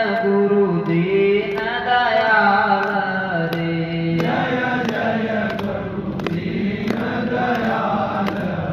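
Hindu devotional singing (a bhajan), voices holding long notes that bend up and down in pitch.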